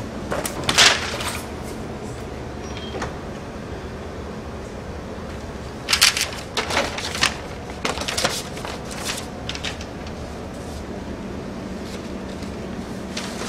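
Scattered sharp knocks and clatters over a steady low hum: one loud one under a second in, a quick cluster about six to seven seconds in, and a few more around eight to nine and a half seconds.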